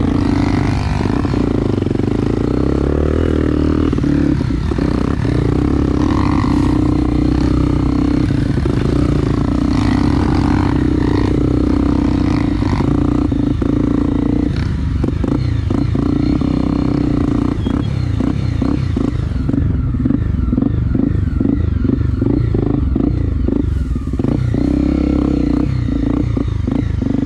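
Honda XR250 Tornado trail bike's single-cylinder four-stroke engine running steadily while being ridden on a dirt trail. From about halfway through, frequent knocks and rattles from the bike over rough ground join the engine.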